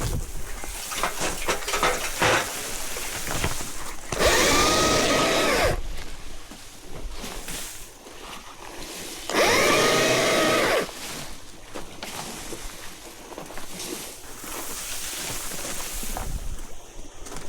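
Battery chainsaw run in two bursts of about a second and a half each, about four and nine seconds in, its electric motor whine rising as it spins up and falling as it stops. Between the bursts, rustling and scattered clicks of branches being handled.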